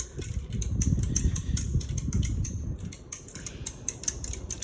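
Hampton Bay Marquesas ceiling fan running, a low rush of air with a quick, regular ticking several times a second.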